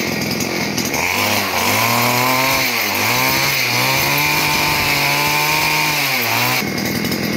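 Brush cutter engine driving a rotary weeding-tiller head with its blades spinning in the air: idling, revved up about a second in, held high with two brief dips, then dropped back to idle near the end.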